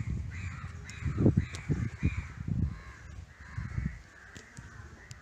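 Crows cawing again and again, harsh calls coming about every half second and thinning out after about four seconds. Under them, low thumps and rumble on the microphone are the loudest sound, strongest about a second in.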